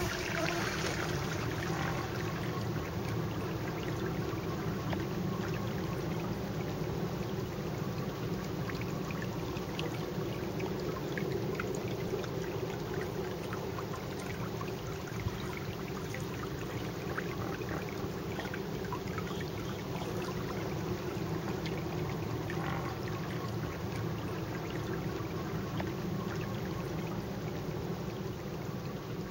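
Forest fire's flames roaring: a steady rushing noise with many faint scattered crackles.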